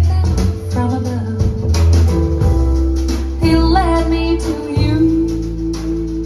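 A song played back through a hi-fi amplifier: a singing voice over guitar and deep bass, holding a long steady note through the second half.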